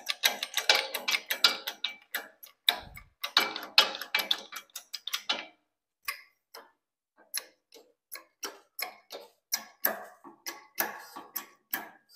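Rapid metallic clicks and ticks from working a shop-built hydraulic press brake with an aluminium sheet in it. The clicks are dense for about five seconds, with a dull thud about three seconds in, then thin out to roughly two a second after a short pause.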